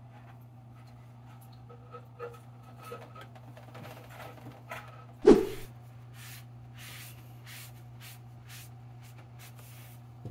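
Hands handling a crinkly plastic bag and paper towel around a potted plant: a string of short rustles and small ticks, with one loud thump about five seconds in, over a steady low hum.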